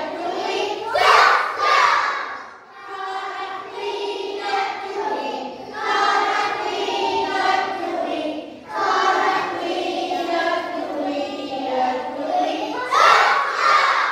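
A class of nursery-age children singing a Christmas song together, their voices swelling louder about a second in and again near the end.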